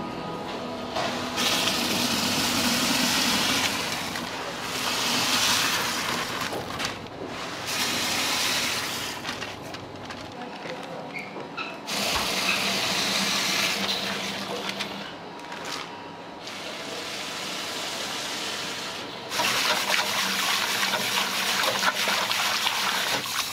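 Liquid pouring and splashing into a large stainless-steel stockpot in stretches that start and stop, with granulated sugar poured in and a whisk stirring.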